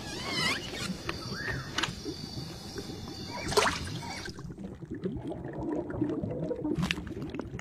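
Water sound effects: a few short gliding squeaks, a sharp splash about three and a half seconds in, then muffled underwater bubbling and sloshing as an olive sinks through the water.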